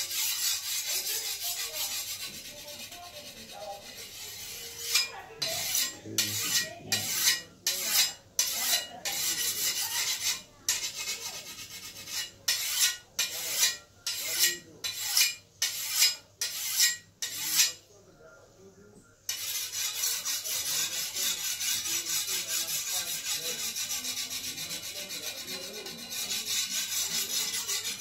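Steel hand file rasping along a machete blade to sharpen it. The strokes come in a fast continuous run, then as separate strokes about two a second, then a short pause before steady fast filing resumes.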